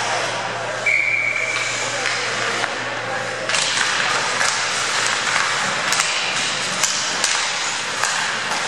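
Ice hockey play in an arena: skates scraping the ice and sharp clacks of sticks and puck, thickening from about three and a half seconds in, over a steady low rink hum. A brief high steady tone sounds about a second in.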